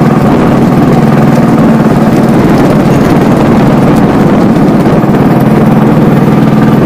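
Engine of a small wooden boat running steadily at an even pitch as the boat goes under way.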